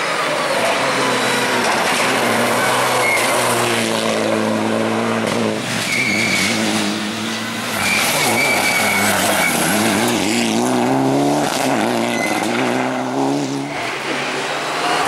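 Mitsubishi Lancer Evo IX rally car's turbocharged four-cylinder engine at full racing effort, its pitch climbing and dropping again and again through gear changes and bends, with a few short tyre squeals.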